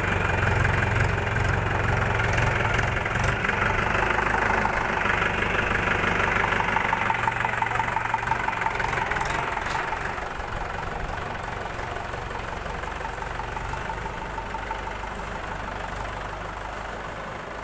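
Mahindra tractor's diesel engine running at a steady idle, growing quieter after about ten seconds.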